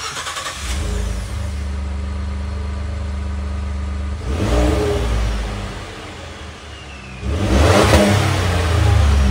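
Ford F-150's 3.5-litre EcoBoost twin-turbo V6 running through its stock exhaust, heard at the tailpipe: a steady idle, then the throttle is blipped briefly about four seconds in and revved longer from about seven seconds.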